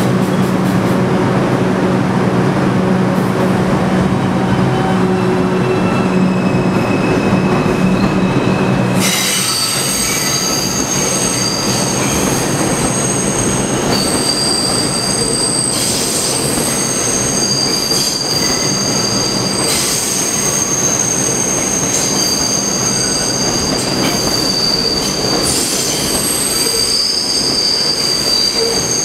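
Subway train wheels squealing as the cars round a tight curve: several high squeal tones hold, fade and return over the noise of the cars. About nine seconds in, a steady low hum cuts off abruptly and the squealing begins.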